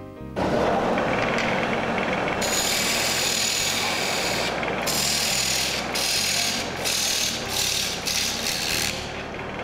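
Wood lathe turning a block of wood while a hand-held turning tool cuts into the hollow of the spinning piece, throwing off shavings: a rough scraping cut that starts about half a second in and turns harsher and hissier a couple of seconds later. In the second half the cut breaks off briefly several times as the tool is eased in and out.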